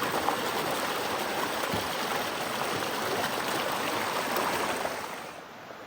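Creek water rushing steadily over rocks, fading down near the end.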